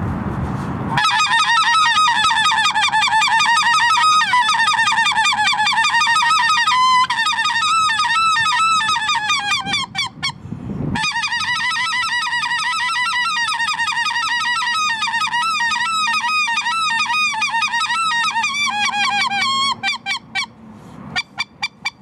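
Goose call blown in long runs of rapid yodelling honks, each note flipping up and down in pitch: the long-range hail used to draw the attention of distant geese, especially in strong wind. Two runs, with a short break for breath about ten seconds in.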